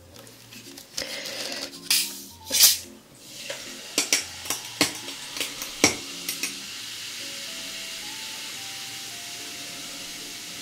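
A plastic bottle of sparkling water is opened with short hissing bursts about two seconds in, then poured over ice in a glass. Ice crackles and clicks for a couple of seconds, and a steady fizz of carbonation rises from the glass through the rest.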